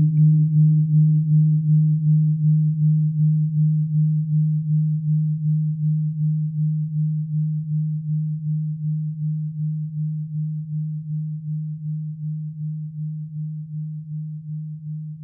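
Electric guitar's low sustained note ringing out through a TC Electronic G-System's delays and spring reverb on a dark ambient preset. A steady hum-like tone pulsing about four times a second and slowly fading.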